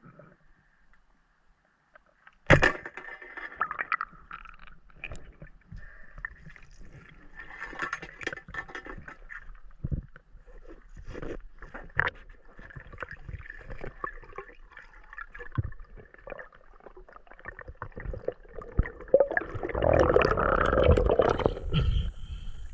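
River water splashing and gurgling around a swimmer, with scattered clicks and knocks. It starts abruptly about two and a half seconds in, after near silence, and swells loudest near the end.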